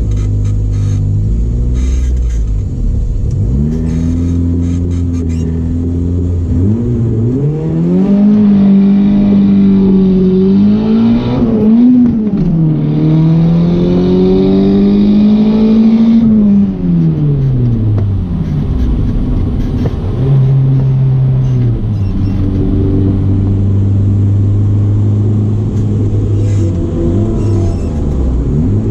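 Turbocharged four-cylinder car engine heard from inside the cabin: idling with a couple of short blips, then revving up hard and hanging at high revs for about eight seconds with no gear changes, before falling back to idle as the car coasts. The car can't get through the gears, not even into second, which the driver puts down to a blown clutch slave cylinder.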